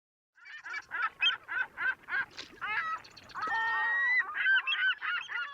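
A flock of geese honking: many short, repeated calls overlapping, with one longer drawn-out call midway, starting abruptly about a third of a second in.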